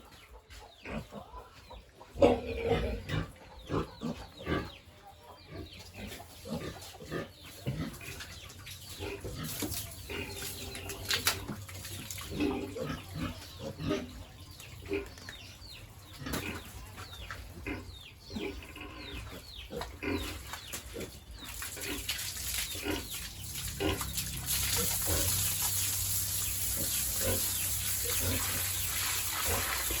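Pigs grunting and squealing in short, irregular calls, with knocks among them. About two-thirds of the way through a steady hiss comes in and grows louder.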